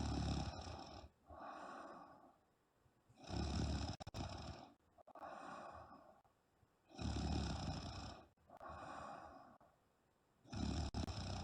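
A woman snoring heavily in her sleep: four loud, rough snores about three and a half seconds apart, each followed by a softer breath out.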